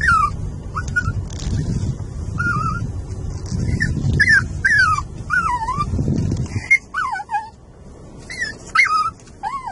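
Small dog whining in excitement, a string of short high-pitched whines that slide up and down in pitch, one after another. A low car rumble runs underneath and drops away about two-thirds of the way through.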